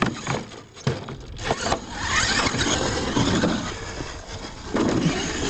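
Radio-controlled monster truck driving over a dirt track and ramps: several sharp knocks in the first two seconds as it hits ramps and lands, then a steady rush of motor and tyres on dirt that rises and falls with the throttle.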